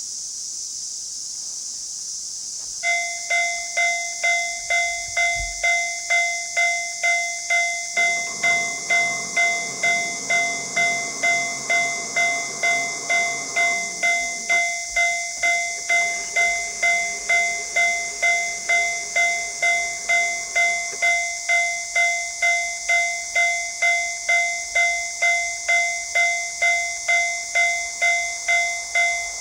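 Japanese railway level-crossing warning bell starting about three seconds in, a steady electronic ding repeating about one and a half times a second, which signals that a train is approaching. A steady high hiss runs underneath, and a low engine hum comes in for several seconds in the middle.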